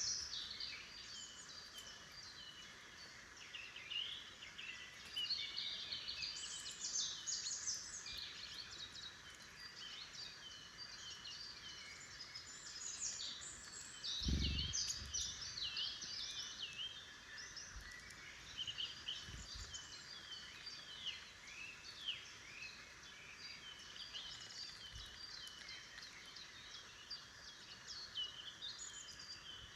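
Woodland songbirds singing and calling together: many overlapping chirps and warbling phrases. A brief low thump about halfway through, and two fainter ones later.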